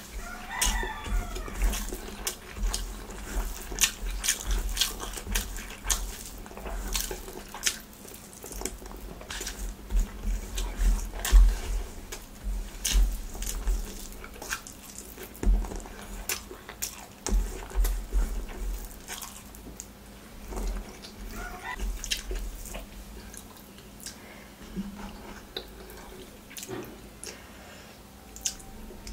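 Close-miked eating: chewing and lip-smacking mouthfuls of rice and curry eaten by hand, with wet squishes of fingers mixing rice and many small sharp clicks.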